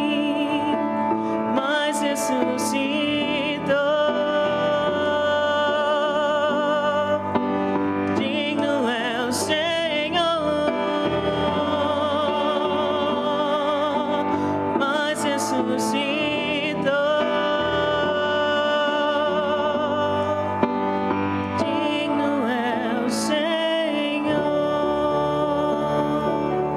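A woman soloist singing long held notes with a wide vibrato over piano accompaniment. Near the end the voice drops away and the accompaniment's chords ring on.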